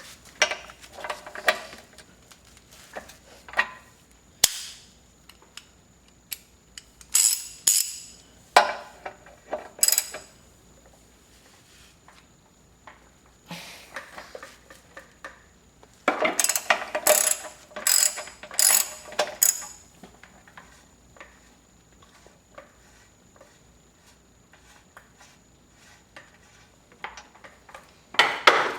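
Socket ratchet wrench clicking in several short bursts with pauses between them, as it turns an impact socket to loosen an air compressor's check valve.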